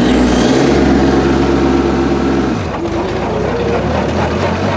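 TYM T25 tractor's small Yanmar diesel engine running at high revs while driving a PTO forestry mulcher. About two and a half seconds in, the engine's pitch drops sharply, and it runs on at lower revs.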